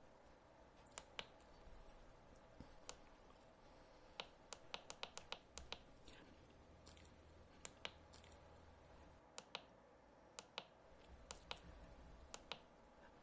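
Small push-buttons on a W1209 digital thermostat clicking as they are pressed. The clicks come singly and in pairs, with a quick run of about eight around four to five seconds in, over a faint steady hum.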